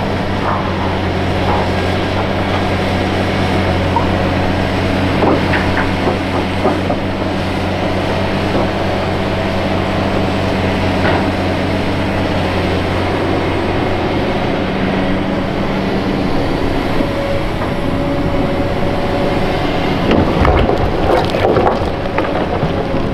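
Large Hitachi Zaxis 470 LCH crawler excavator's diesel engine running under working load, with scattered knocks and clanks of the machine and its bucket. The steady engine drone falls away a little past halfway, and a cluster of heavier knocks with a low thump comes near the end.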